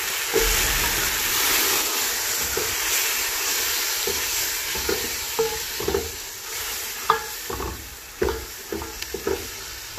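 Grated tomato sizzling in hot oil with fried onion and garlic in a metal pot, loud at first and dying down as it cooks. A wooden spoon stirs it, with short knocks and scrapes against the pot in the second half.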